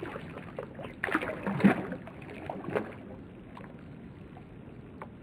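A hooked shad splashing and thrashing at the water's surface: a burst of splashes about a second in, the loudest near the middle, and another splash shortly after, then small light splashes.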